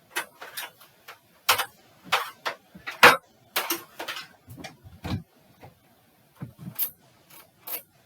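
A run of irregular clicks and knocks, a dozen or so short sharp strokes at uneven spacing, thinning out over the last few seconds.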